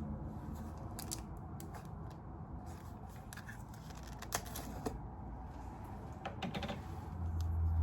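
Scattered small clicks and taps of craft items being handled on a work table, over a low steady hum, with a low rumble swelling near the end.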